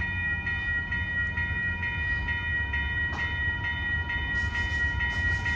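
Railroad grade-crossing warning bell ringing steadily, about two strikes a second, over a low rumble.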